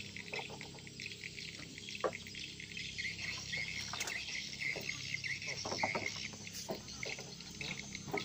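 River water splashing and sloshing as a hand works in it at the edge of a wooden raft, with irregular small splashes throughout. Insects chirp steadily behind it.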